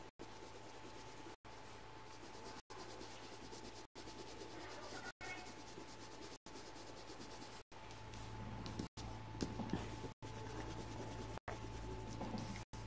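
A drawing tool rubbing and scratching across paper as a picture is coloured in, faint, over a thin steady hum. It is cut by a brief dropout to silence about every second and a quarter.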